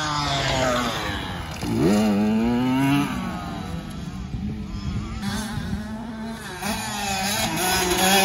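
Motocross dirt bike engine revving hard under acceleration. The pitch climbs steeply about two seconds in, holds briefly and drops, then climbs again near the end.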